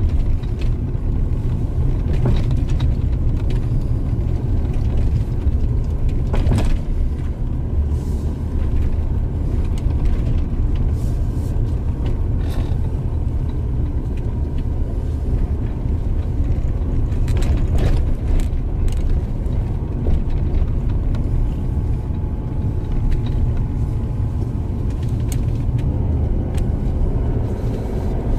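Steady low rumble of a car driving on an unpaved dirt road, heard from inside the cabin, with a few sharp knocks scattered through.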